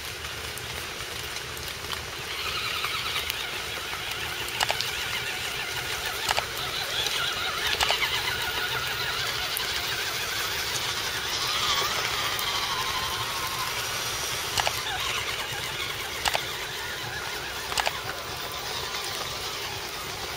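Radio-controlled scale truck's electric motor and gears whining, the pitch rising and falling with the throttle, over a steady hiss. Sharp knocks come about six times.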